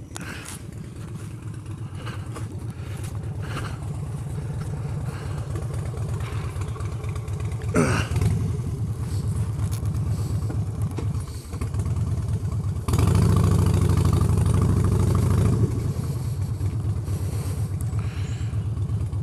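Harley-Davidson Street Bob's V-twin engine idling, growing louder as the microphone comes up to it. It is then revved and pulls away under load up a steep, rough gravel track, loudest for a couple of seconds about two-thirds of the way through, then running steadily.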